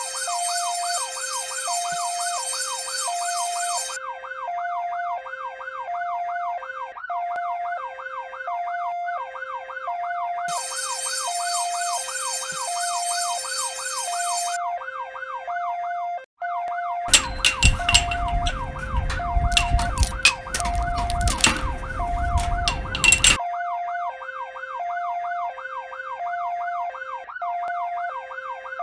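Electronic emergency siren sounding continuously: a fast yelp sweeping up and down, layered with a high-low two-tone that alternates about once a second. A harsh buzzing tone comes in twice, and a burst of rumbling noise with clattering knocks runs for about six seconds from roughly two-thirds of the way in.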